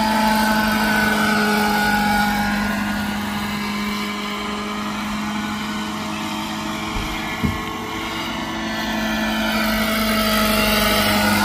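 Hirobo EC-135 radio-controlled scale helicopter in flight, its rotor and motor running at a steady pitch. It grows fainter through the middle and louder again toward the end as it moves about. There is a brief knock about seven and a half seconds in.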